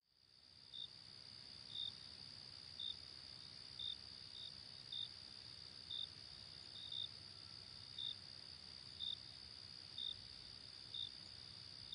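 Faint insect ambience: a steady high-pitched drone with a short chirp about once a second, fading in at the start.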